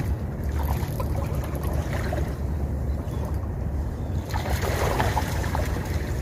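Wind buffeting the microphone in a steady low rumble, with sea water washing over the shore rocks.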